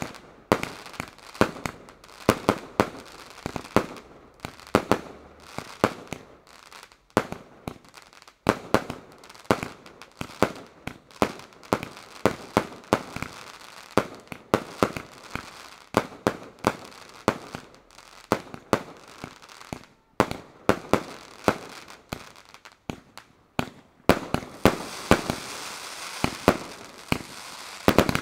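Aerial fireworks bursting in a rapid string of sharp bangs, a few a second, growing denser in the last few seconds.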